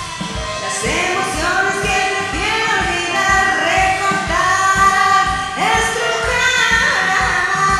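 Rock-blues song performed by a female singer with a band, her voice over a steady drum beat.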